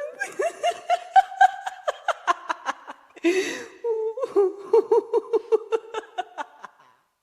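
Infectious, prolonged laughter: rapid 'ha-ha' pulses at about four to five a second. It is broken about three seconds in by a short noisy gasp of breath, then goes on and stops shortly before the end.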